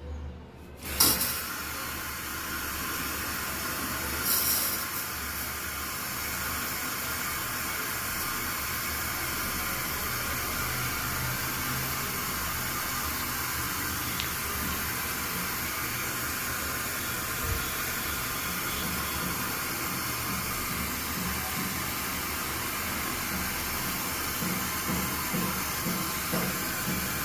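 Water running steadily, starting abruptly about a second in, with a brief knock a few seconds later.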